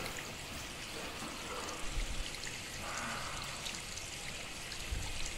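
Steady trickle of urine streaming into a urinal.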